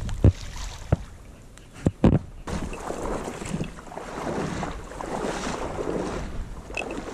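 A hunter wading through shallow marsh water, water swishing and sloshing around the legs with each stride. A few sharp knocks come first, in the opening two seconds.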